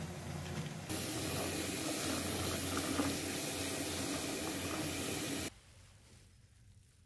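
Bath tap running full into a tub, a steady rush of water churning up bubble-bath foam. It starts suddenly about a second in, following a quieter hiss with a low hum, and cuts off sharply about five and a half seconds in, leaving faint room tone.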